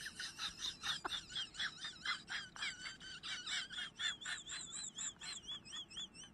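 Animal calls: rapid, repeated high chirps, about three or four a second, with a warbling whistle joining in from about four seconds in.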